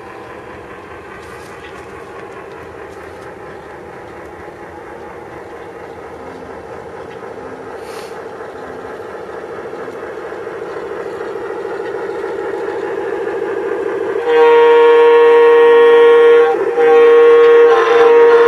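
Dallee electronic sound units in G-scale model diesel locomotives playing a steady diesel engine sound that grows louder as the train approaches. About three-quarters of the way through, a loud diesel air horn sounds in long blasts with short breaks between them.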